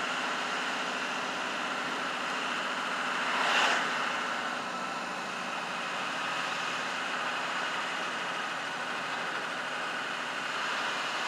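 Steady engine and road noise inside a car driving slowly, with a brief louder swell about three and a half seconds in.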